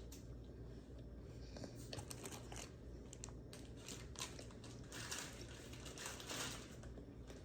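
Faint eating sounds from someone chewing a chicken snack wrap, with the paper wrapper crinkling, heard as scattered short crackly noises and small clicks.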